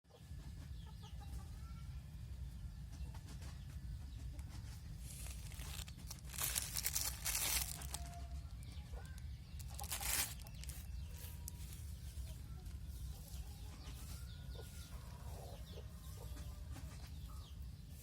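Chickens clucking now and then over a steady low hum, with two loud bursts of rustling about six and ten seconds in.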